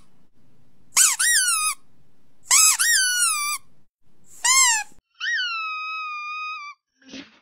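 Three high-pitched squeaks, each rising then falling in pitch, about a second and a half apart, then a longer squeak held at a steady pitch, from a sound clip played to see how a dog reacts. A short soft noise right at the end.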